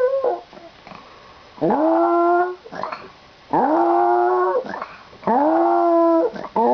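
A pet dog making long, drawn-out whining calls, one after another with short pauses: three of about a second each, with a fourth starting near the end. Each call swoops up quickly, then holds a steady pitch.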